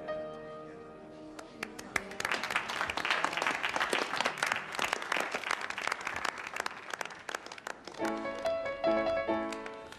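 A piano piece dies away, then a small group claps by hand for about six seconds; near the end the piano starts a new piece.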